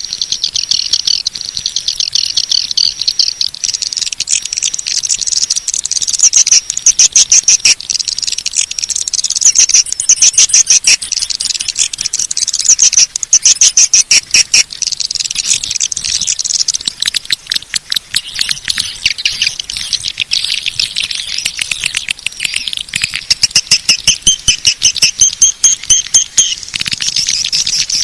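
Swiftlet call recording, the kind played at swiftlet houses to lure edible-nest swiftlets in: a dense, high twittering chatter broken several times by fast, pulsing runs of rapid clicks.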